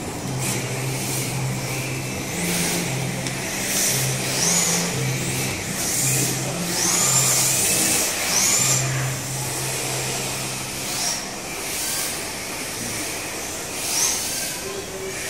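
Electric RC drift cars running on a smooth tiled track: their motors whine up and down in pitch with the throttle, several times, with bursts of hiss from the tyres sliding.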